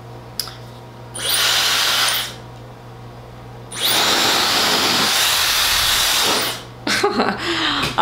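Dyson Supersonic hair dryer switched on twice briefly, blowing a loud rush of air: a burst of about a second, then one of about three seconds, each cut off abruptly.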